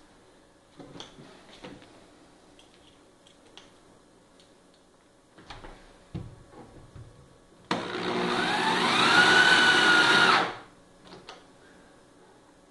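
Corded electric drill running against plywood for about three seconds, its motor whine rising as it speeds up and then stopping abruptly. A few light knocks of handling the drill and wood come before it.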